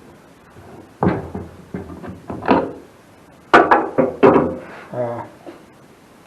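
A man's low, unclear muttering, with one sharp knock about three and a half seconds in.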